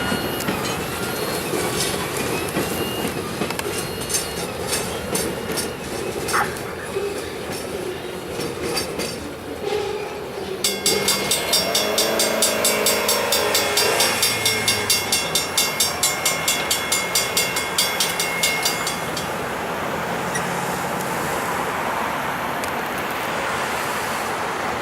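A freight train rolling past over a road grade crossing, its wheels clattering steadily on the rails. For several seconds in the middle a crossing-signal bell rings steadily, about two to three strikes a second.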